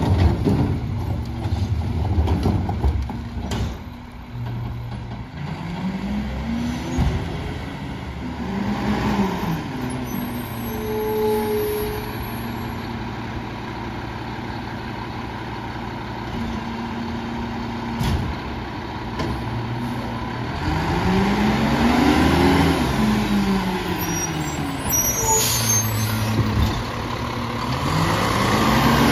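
Mack LEU garbage truck pulling away and passing by, its engine pitch climbing and dropping back three times as it accelerates through the gears, over a steady engine drone. A few knocks at the start as a trash cart is banged into the rear loader's hopper.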